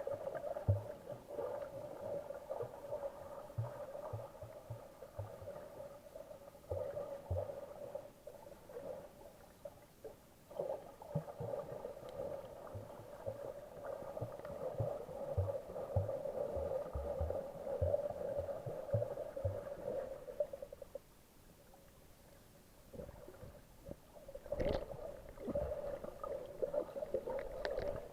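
Muffled underwater noise picked up by a camera during snorkelling: a steady hum with irregular low knocks. The hum drops out for a couple of seconds, and a brief louder splash-like burst comes near the end.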